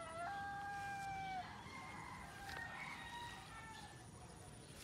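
Rooster crowing: the long drawn-out last note of a crow trails off about a second and a half in, followed by fainter crowing.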